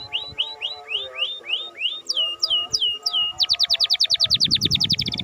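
Canary singing in phrases of repeated notes: a run of short rising chirps, then a few slower downward-sweeping whistles, then a fast rapid trill that starts a little past halfway and keeps going.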